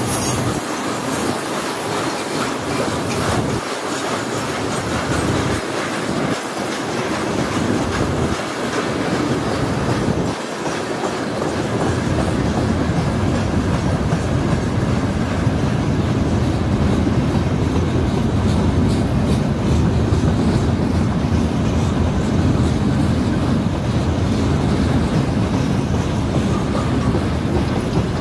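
Freight train wagons rolling past: tank cars, then covered hopper cars, with a steady rumble and clatter of wheels on the rails. The rumble grows deeper from about ten seconds in.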